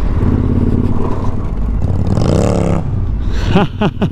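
Suzuki V-Strom motorcycle engine running steadily while riding a rough gravel road, with wind and road noise. A brief rising-and-falling pitched sound comes about two seconds in, and short voice sounds come near the end.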